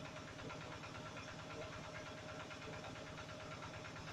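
A small engine running steadily at idle, a constant low drone with a faint steady whine over it.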